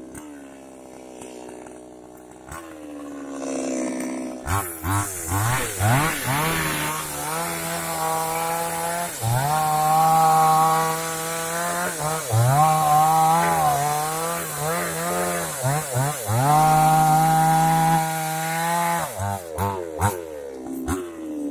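Two-stroke petrol chainsaw (New West) running at low revs for the first few seconds. It is then opened up to full throttle in several long pulls, sawing through rubber-tree wood, and its whine dips and recovers as the chain bites. Near the end it falls back toward idle with a few short blips of the throttle.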